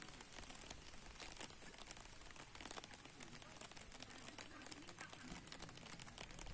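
Light rain pattering as a faint, irregular stream of small drop ticks.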